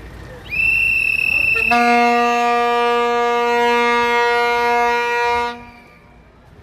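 A shrill whistle blown for about two seconds, overlapped by a horn sounding one long steady low note for about four seconds, then fading to quieter crowd noise near the end.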